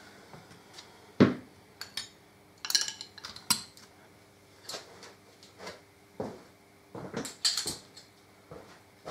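Metal hand tools clinking, tapping and scraping against metal in irregular sharp clicks, with a few bright ringing clinks and one louder knock about a second in.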